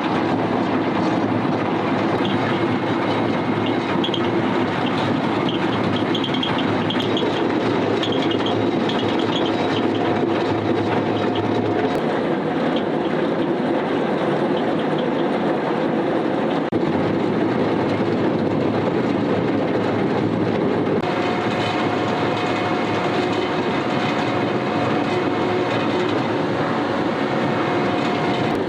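Cat M318D wheeled excavator working a hydraulic breaker: a steady, dense clatter over diesel engine noise, without pause.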